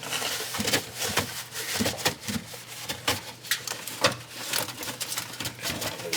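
Rag scrubbing baking-soda paste over the greasy metal of a kitchen exhaust hood: a quick, uneven run of scratchy rubbing strokes.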